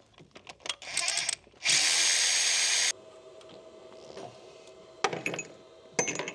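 A power tool runs briefly about a second in, then steadily for about a second, backing out the injector hold-down bolt on a 6.7L Powerstroke diesel. Two sharp metal clinks follow near the end.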